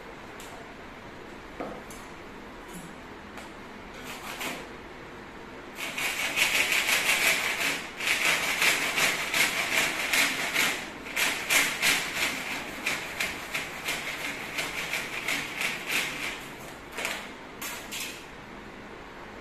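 Hand saw cutting through a laminate flooring trim strip with quick back-and-forth strokes. The sawing starts about six seconds in and ends with a few last strokes near the end.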